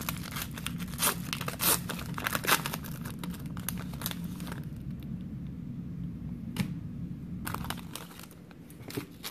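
A booster pack's foil wrapper being torn open and crinkled, with a dense run of sharp crackles over the first four seconds or so, then quieter handling with a few scattered crinkles as the cards come out of the pack.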